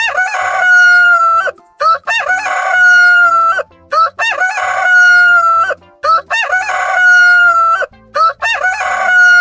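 Rooster crowing: five long cock-a-doodle-doo calls in a row, about two seconds apart, each opening with short rising notes and ending in a long held note that sags slightly.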